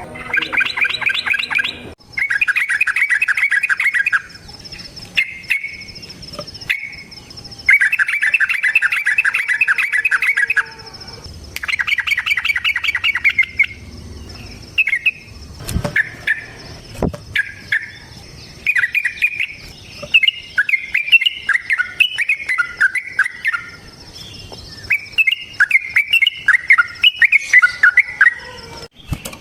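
Yellow-vented bulbul (trucukan) singing. It gives several bursts of fast bubbly chattering notes, each two to three seconds long. In the second half these give way to a string of shorter warbled phrases that fall in pitch.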